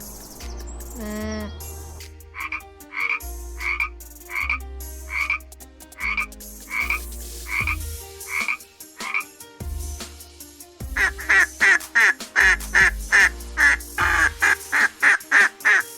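Frog croaking in a series of short repeated calls: a slower run for several seconds, then a faster, louder run of croaks near the end.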